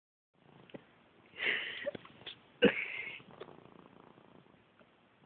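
A cat hiccuping twice, about a second apart, each a short, sudden sound.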